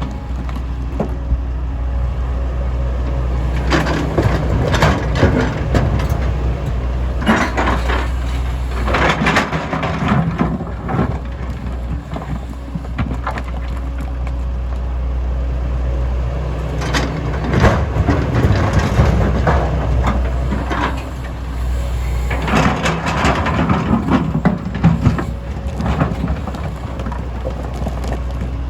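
MST M220LC excavator's diesel engine running steadily, with rock and stone clattering and crashing in four spells as the bucket digs and loads stone into a truck.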